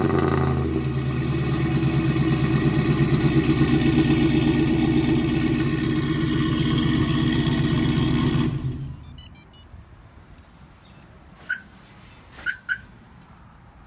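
Chevrolet 5.3-litre V8 running on headers and dual exhaust tips, idling with a steady pulsing exhaust note just after a cold start. It shuts off about eight and a half seconds in, followed by a few faint short chirps.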